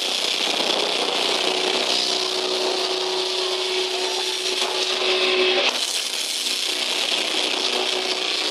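Death metal band playing live, heard loud and harsh through a phone microphone with no bass. Distorted guitars hold a steady note over a dense wash of drums and cymbals, shifting abruptly a little over halfway through.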